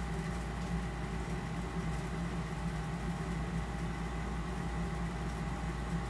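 Steady low machine hum with two faint, thin steady whine tones above it, unchanging throughout: background noise of a running appliance in the room.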